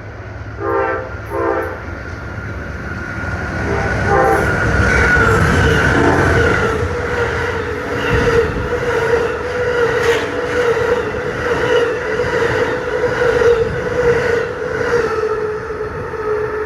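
Amtrak passenger train led by two GE P42DC diesel locomotives passing at about 60 to 65 mph. Two short horn blasts sound in the first couple of seconds and another about four seconds in. Then comes a loud rush of the train going by, with low rumble, regular rail clicks and a steady high tone running through it.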